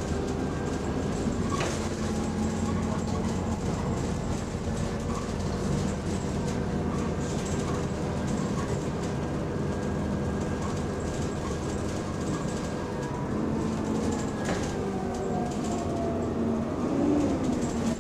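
Engine and radiator cooling fan of Go-Ahead London bus E266 running, heard from inside the passenger saloon while the bus is moving: a steady drone with a thin high whine. There are two sharp knocks, one about a second and a half in and one near the end, and the engine note slides in pitch in the last few seconds.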